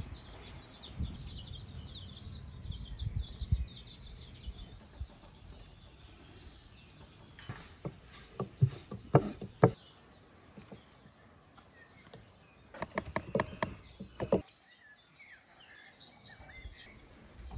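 Birds chirping in the background, with two short runs of sharp clicks and knocks in the middle.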